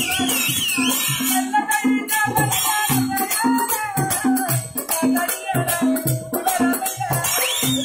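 Live Kerala folk-theatre music: a chenda drum beating about two strokes a second, with rattling percussion and hand claps, under a held melodic line.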